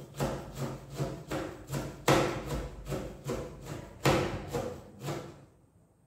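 Knife chopping meat on a cutting board: a steady run of sharp knocks, about two or three a second, with a few harder strokes, stopping shortly before the end.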